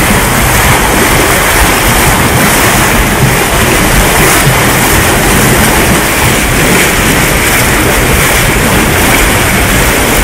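Whirlpool hot tub jets churning the water: a loud, steady rush of bubbling water.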